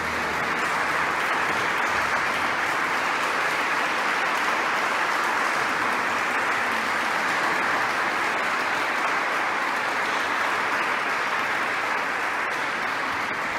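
Audience applauding steadily at the end of the piece.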